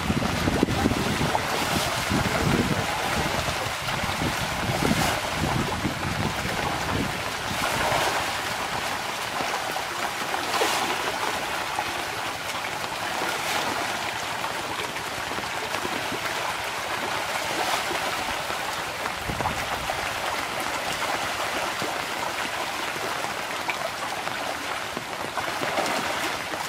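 Pangasius catfish in a feeding frenzy, a dense shoal thrashing and splashing at the surface of a pond as feed pellets are scattered. The water churns continuously, with louder splashes every few seconds.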